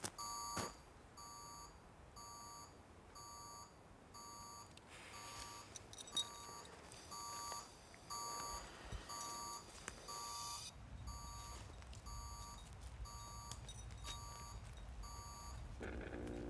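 Electronic alarm beeping steadily, one short beep about every second, on and on. A low rumble comes in about two-thirds of the way through.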